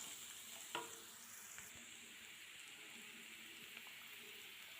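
Faint sizzling of onions and spice powders frying in oil in a pan, with one light click under a second in.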